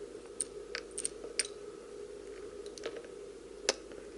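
Scattered light metallic clicks from a pin-tumbler lock cylinder being taken apart by hand, its plug, pins and springs coming out, about half a dozen ticks with the sharpest near the end.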